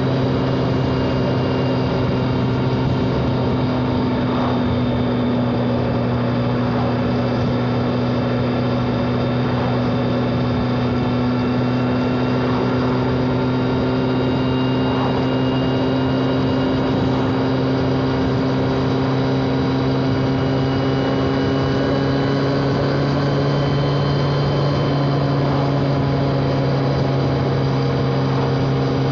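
BMW K1200R's stock-exhaust inline-four engine pulling at a steady mid-range speed while riding, its note holding nearly level with a slight rise in pitch about two-thirds of the way through.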